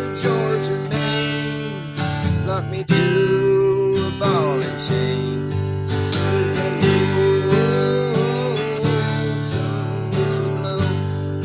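Acoustic guitar strummed in a steady country rhythm, with a melody of bending, wavering notes over the chords: an instrumental break with no singing.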